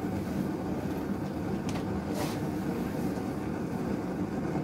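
A steady low rumble with brief rustles about two seconds in, as a person lowers himself into a car's driver's seat.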